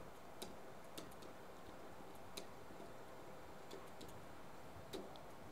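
Faint, irregular clicks and taps of a pen on an interactive whiteboard while handwriting, the loudest a few seconds in, over a faint room hum.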